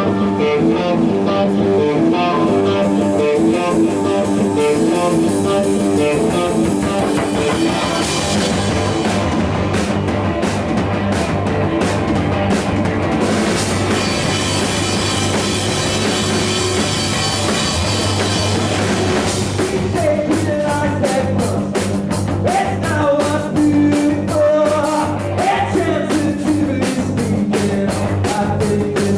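Rock music with electric guitar and drum kit: a repeating guitar figure at first, the drums coming in about eight seconds in, and singing in the second half.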